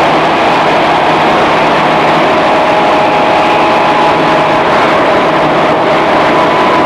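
Interior running sound of a JR East 211 series electric multiple unit's motor car at speed: steady rolling noise with a continuous whine from the traction motors and gears.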